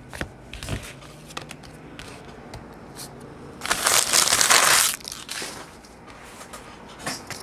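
Crinkling of a trading card pack's plastic wrapper as it is torn open and crumpled by hand: one loud burst lasting about a second, about three and a half seconds in. Light clicks and taps of cards being handled come before it.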